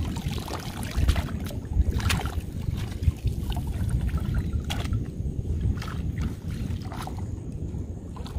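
A wet cast net lifted and gathered in shallow lagoon water: several short splashes and drips of water running off the mesh. A steady low rumble of wind on the microphone runs under it.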